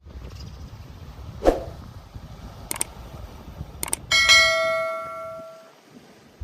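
A dull thump and a few sharp clicks, then a single loud bell-like metallic ring that fades away over about a second and a half.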